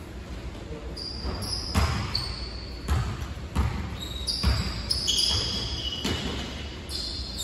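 Athletic sneakers thumping and squeaking on an indoor court floor during standing vertical jumps: five dull landing thumps at uneven gaps of about a second, with short high squeaks of the soles.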